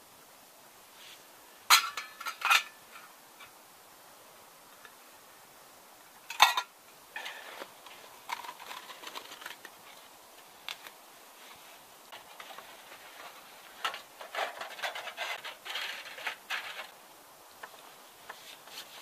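Tin-can hobo stove and soda-can burner parts clinking as they are handled, with three sharp metallic knocks in the first seven seconds, then a long run of lighter clicks and rustles.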